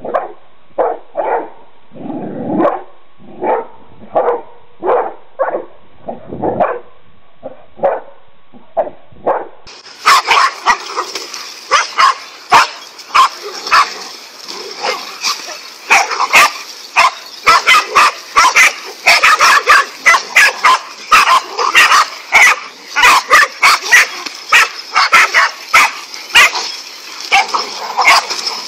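Dogs barking at a snake. For the first ten seconds the barks are short, separate and dull, about two a second. From about ten seconds in, a pack of dogs barks at once, clearer, many overlapping barks in quick succession.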